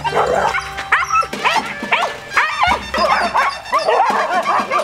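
Kombai hounds barking and yelping over one another, many short high calls a second, with music underneath.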